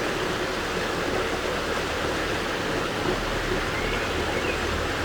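Steady rush of water at a water mill's wheel, with a low rumble underneath from the turning wheel and its belt-driven pulleys.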